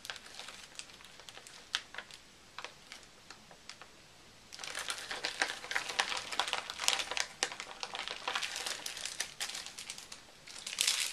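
Packaging being handled and unwrapped: a few light ticks at first, then a dense spell of crinkling and rustling about halfway in, and again near the end.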